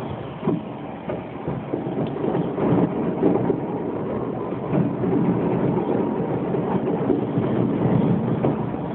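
A fireworks display heard from a distance: a dense, continuous barrage of shell bursts merging into a rumble full of bangs and crackle, growing louder and thicker a few seconds in.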